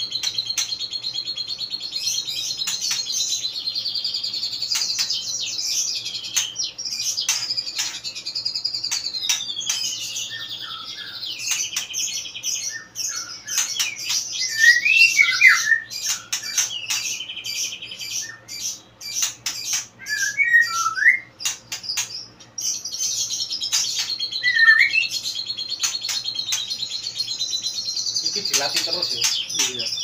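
White-rumped shama (murai batu) in full song: long runs of fast, high chattering trills. In the middle these give way to varied whistled phrases and sharp clicks, with a few loud ringing notes, before the trilling comes back.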